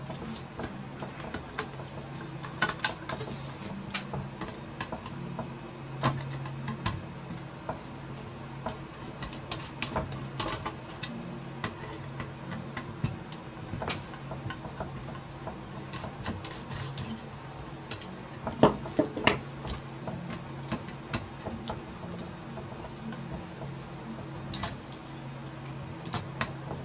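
Irregular small metal clicks and clinks of a screwdriver backing out the screws of a graphics card, with a couple of brief rustles from the anti-static bag under it and a steady low hum underneath.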